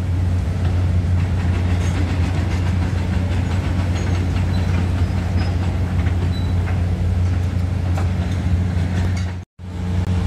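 Heavy diesel demolition machinery running steadily, a deep even drone with scattered light knocks. The sound cuts out for an instant near the end.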